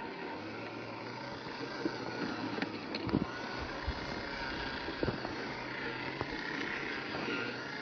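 Small electric motor and gear drivetrain of a 1:18 scale Rochobby Katana RC crawler whining steadily as it crawls over pine needles and twigs, with a few sharp cracks and knocks from the tyres and chassis around three and five seconds in.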